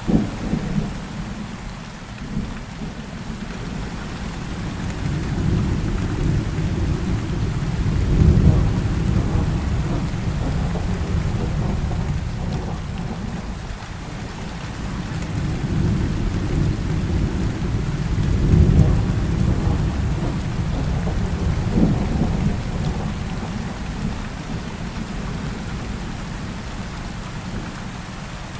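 Heavy rain falling steadily, with thunder rolling in twice as long low rumbles that swell and fade, and a sharper crack of thunder at the start and another later on.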